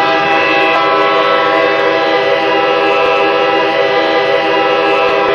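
Hockey arena goal horn sounding one long, steady blast, several pitches held together like a chord.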